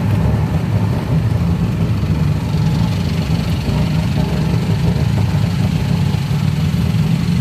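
Tuk-tuk engine running steadily with a low, even drone, heard from inside the open passenger cab.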